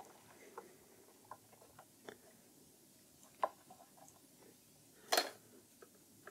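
Faint, scattered small clicks and handling noise from a Bluetooth module being pressed back onto the mainboard connector of a Veteran Sherman electric unicycle. The clicks come a few at a time, with a louder short cluster of clicks about five seconds in.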